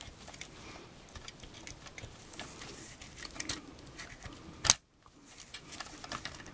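Hands reloading a small plastic toy net launcher: soft rustling of the cloth net and light clicks of plastic parts being handled, with one sharp click about two-thirds of the way through.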